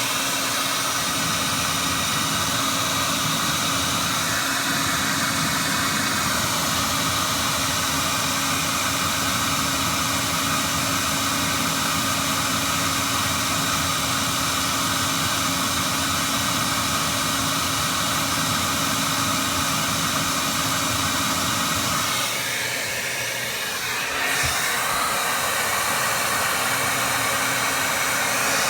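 Steady whir of a small electric motor and fan running, with a few held tones. About 22 seconds in it dips and wavers briefly, then settles back.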